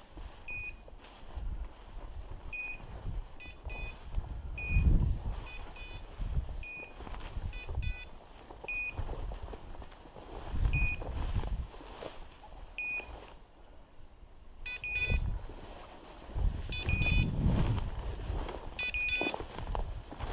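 Electronic beeper collars on German shorthaired pointers sounding short high beeps every second or two, some in quick multi-tone clusters. Under them, low rustling swells from pushing through tall dry grass are the loudest sound.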